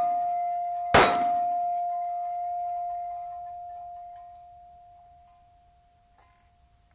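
A .45 ACP pistol round strikes a hanging steel plate gong about a second in, a sharp crack followed by a clear single-pitched ring that fades away over several seconds. The ring from a hit just before is still sounding at the start.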